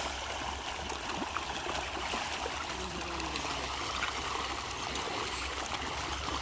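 A dense shoal of fish churning at a pond's surface, a steady mass of small splashes and water patter with many tiny clicks.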